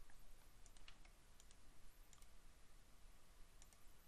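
A few faint computer mouse clicks, spaced irregularly over near silence.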